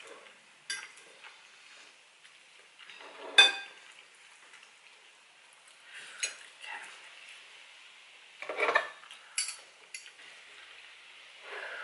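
Fork and knife clinking and scraping against a plate while cutting into a soft, moist stuffed bell pepper. There are a few sharp clinks, the loudest about three and a half seconds in, and a longer scrape about eight and a half seconds in.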